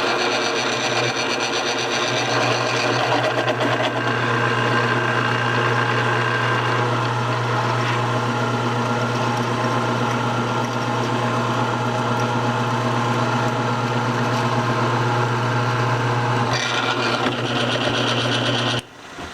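Drill press running steadily with a strong motor hum while drilling. It shuts off just before the end.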